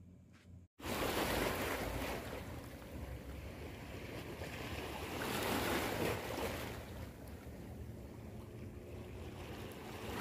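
Small sea waves washing over a rocky shoreline, swelling and easing, with wind rumbling on the microphone. The sound starts abruptly under a second in, after a brief silence.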